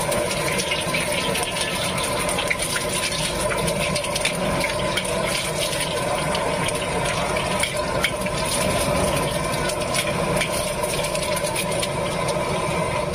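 An egg frying in hot oil in a steel wok, sizzling steadily with many small crackles and pops, over a constant low stove roar.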